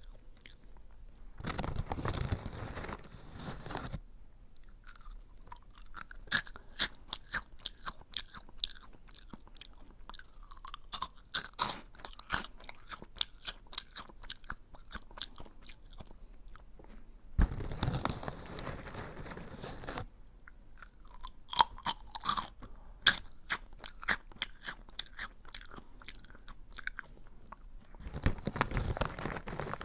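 Close-up crunching and chewing of a crisp curry-flavoured snack (味カレー), many sharp crackly crunches in irregular bursts. Three short stretches of duller, denser noise break in: about two seconds in, a little past halfway, and near the end.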